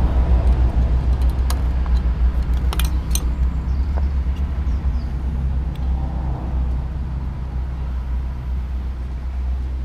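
A steady low rumble, with a few sharp clicks about one and a half and three seconds in as the fog lamp units are handled.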